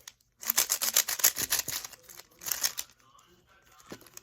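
A plastic speed cube's layers being twisted quickly, a dense run of rapid clicks in two bursts, the second short and ending under a second later.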